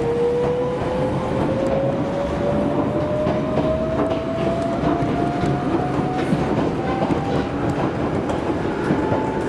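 Jomo Electric Railway train, a former Keio Inokashira Line car, accelerating: its traction motor whine climbs steadily in pitch over the running rumble, with wheels clicking over rail joints, heard from inside the car.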